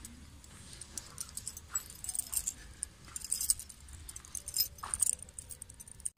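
Keys jangling with scattered light metallic clicks as a padlock on a steel gate is handled and unlocked.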